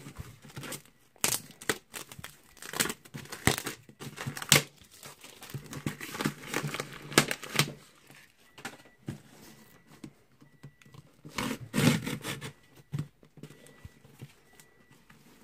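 Freshly sharpened folding knife slicing and scraping along packing tape on a cardboard box, with the tape and plastic wrap crinkling and tearing in irregular bursts and clicks.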